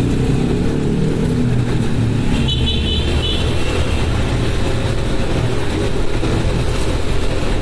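Motorcycle engine running while riding, with steady road and wind rumble on the microphone; a short high-pitched tone sounds about two and a half seconds in.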